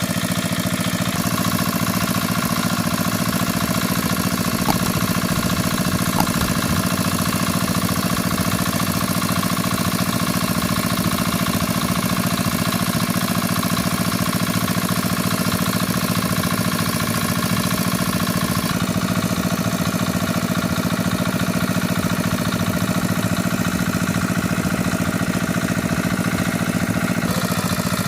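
An engine running steadily at idle, with an even pulsing hum that holds unchanged throughout.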